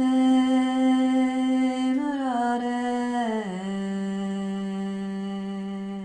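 A woman's voice singing one long, slow held note of a Sanskrit devotional chant. The pitch steps down twice, about two and three and a half seconds in, and the note is then held lower.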